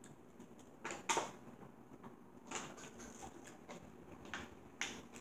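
Eating sounds: a fork clicking and scraping against a plate several times, the loudest click about a second in.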